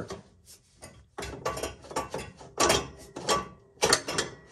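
Willys Jeep exhaust pipes scraping and clanking metal on metal as the long exhaust pipe is twisted and tugged off the exhaust manifold pipe at their slip joint, in a string of short rasps and knocks.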